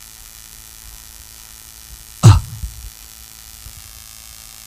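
Steady electrical mains hum from a microphone and sound system, with one short, loud burst about halfway through.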